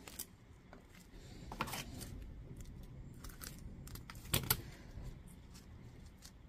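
A few light clicks and knocks of 18650 lithium-ion cells and the plastic cell holder of a battery pack being handled and pressed into place. Cells are going into a tight holder. The loudest knocks are a quick pair a little after four seconds in.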